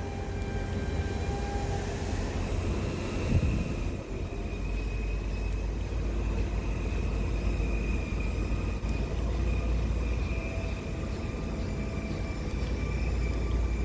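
Small battery neck fan running steadily with a faint high motor whine, over a steady low rumble. There is one brief bump about three seconds in.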